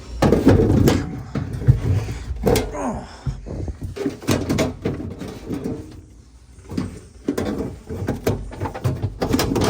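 Hands and a screwdriver working inside a side-by-side refrigerator's freezer compartment: an irregular run of clicks, knocks and scraping of plastic and metal parts, with a few short squeaks.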